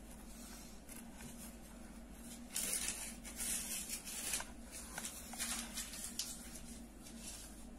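Crochet hook and yarn rustling and scraping against a wooden bag side as stitches are worked through its holes. The rustling is loudest for a couple of seconds a few seconds in, with a few light clicks.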